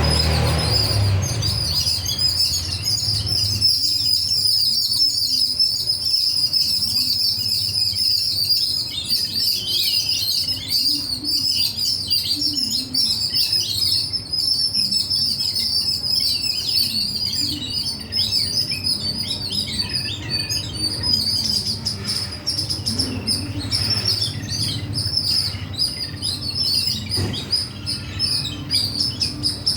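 Many small birds chirping at once: a dense, continuous twittering of high, overlapping chirps.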